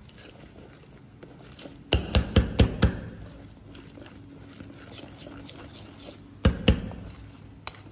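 Wire whisk folding whipped egg whites into chocolate batter in a stainless steel bowl: soft stirring, with the whisk knocking against the metal bowl in a quick run of about five clinks about two seconds in and two more a little after six seconds.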